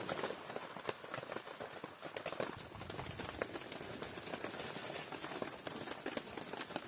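Small wood fire crackling, with many quick irregular pops over a steady hiss.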